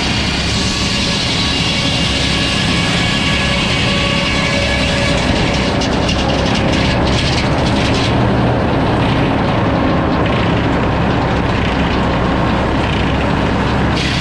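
Sawmill saw cutting through a log, with the mill's engine running steadily underneath. The high hiss of the cut thins out about halfway through and comes back near the end.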